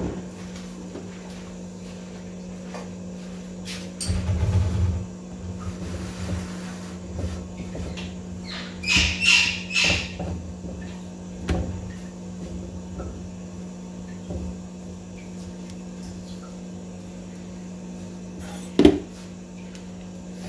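Bread buns being turned over on a flat tawa and metal tongs handled against the pan, giving scattered knocks and clacks, with a brighter clatter about halfway through and a sharp clack, the loudest, near the end. A steady low hum runs underneath.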